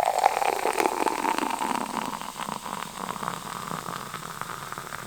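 Sparkling passion fruit juice poured from a can into a glass: a pouring tone that rises slightly in the first second, with many fine crackles of fizz as the foam builds, fading away toward the end.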